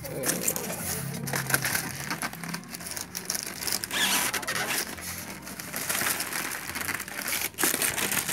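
Clear plastic wrapping crinkling and rustling as hands handle a wrapped voltage stabilizer packed in foam inside a cardboard box, with irregular crackles throughout.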